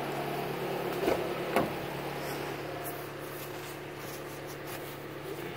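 Steady low hum of the 2016 Toyota RAV4's engine idling. Two short knocks from things being handled come about a second and a second and a half in.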